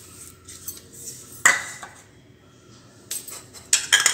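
A small ceramic bowl clinking against a glass mixing bowl and being set down on a stone counter. There is one sharp clink about a second and a half in, then a few more knocks near the end.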